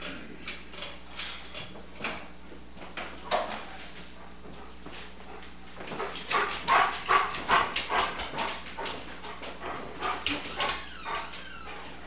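A dog giving a run of short yips and whines, a few a second at first, then a denser, louder run in the second half. A steady low hum lies underneath.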